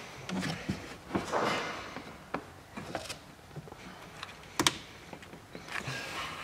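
Rubber wiring-harness boot being pressed out of an Audi A4 B7 door frame: scattered plastic clicks and rubber rubbing as its retaining clips are worked loose, with a sharper click about four and a half seconds in.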